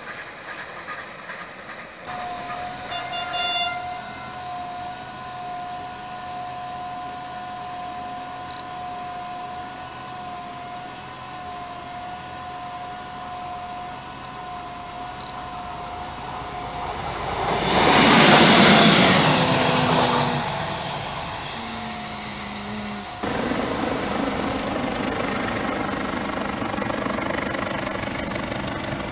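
Diesel trains running. A diesel railcar gives a steady whine, grows loud as it passes close, then drops in pitch as it draws away. After that a D.445 diesel locomotive hauling passenger coaches approaches with a steady running noise.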